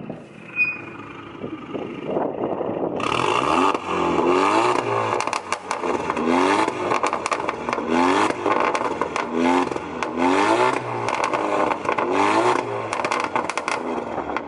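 Tuned Alfa Romeo Giulia engine and exhaust revved hard again and again, about every second and a half, from about three seconds in. Each rev is followed by a string of sharp pops and crackles on the overrun, the exhaust burble the tune is set to make.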